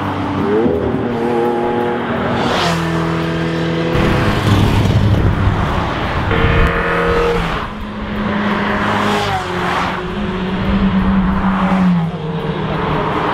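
Sports cars passing one after another on a race circuit. Their engines rev, and the pitch rises and falls as each car goes by, with several loud pass-bys a couple of seconds apart.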